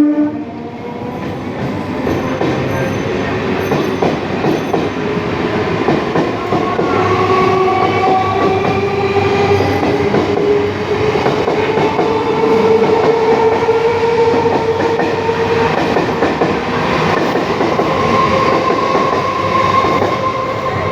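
A train running on the track: a steady loud rumble and rattle of wheels over the rails, with faint thin whining tones that drift slowly in pitch.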